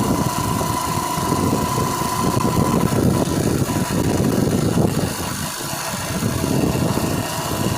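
Yamaha Crux's single-cylinder four-stroke engine running steadily, with a thin steady high tone over the engine's beat. The engine has a freshly fitted primary drive gear (GPD pinion), put in to cure a whine from worn gear teeth, and the mechanic judges the whine 99% gone.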